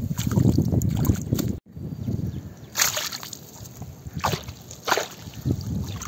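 Water sloshing and splashing, with about three short sharp splashes in the second half after a sudden break.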